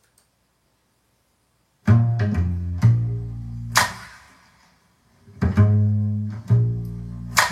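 Music: after about two seconds of silence, a song opens with deep plucked bass notes in two short phrases, each with one sharp percussive hit.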